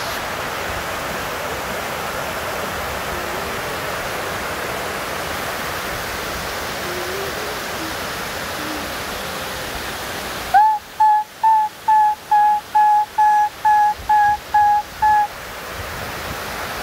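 Creek water rushing down a bedrock cascade, a steady rush. About two-thirds of the way through, about eleven short beeps at one pitch sound, evenly spaced over some five seconds, and the water drops away beneath them.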